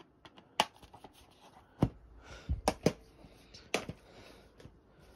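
Plastic DVD case being handled and put aside: about five sharp clicks and knocks, with light rustling between them.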